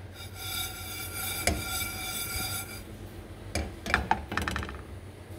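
Metal pressure cooker and its lid being handled: a steady squealing tone for about two and a half seconds with a knock in the middle, then a few clinks and a short rattle, over a steady low hum.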